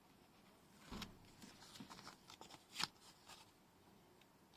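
Faint rustling and small ticks of paper being handled as the backing is peeled off double-sided tape, with one sharper tick nearly three seconds in.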